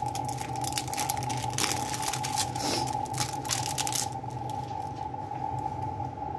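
Thin plastic film from processed cheese slices crinkling as it is handled and peeled, in quick irregular crackles for about four seconds before it goes quieter. A steady high tone and a low hum run underneath.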